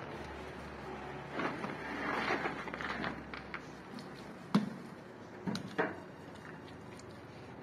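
Hand plastering work on a metal-lath wall: rough scraping against the plastered surface, then a few sharp knocks of a tool or hand on the wall or lath in the second half.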